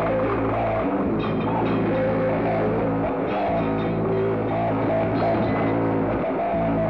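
Harsh noise music played from a cassette: a dense wall of distorted sound over steady layered low drones, with wavering pitches in the middle. The bass briefly drops out about a second in, around three seconds in, and again near the end.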